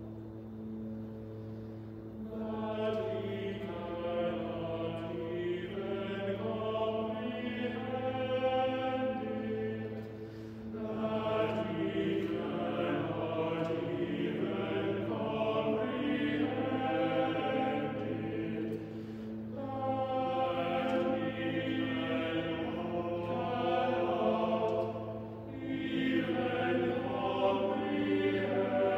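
Men's choir singing a slow two-voice motet, the upper line moving in phrases with short breaks every several seconds over a steady low drone.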